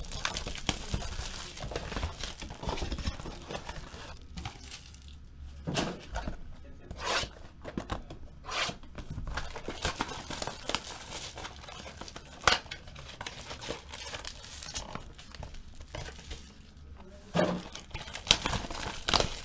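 Plastic shrink wrap being torn and crinkled off a sealed trading-card hobby box by hand. Steady rustling is broken by a few sharp snaps, the loudest about halfway through and near the end.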